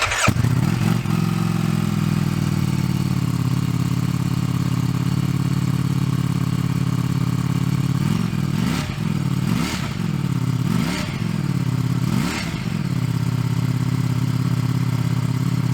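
Stock Ducati Streetfighter V4 S's 1103 cc V4 engine, on its standard exhaust, idling just after start-up. About halfway through it takes four quick throttle blips, each rising and falling, then settles back to a steady idle.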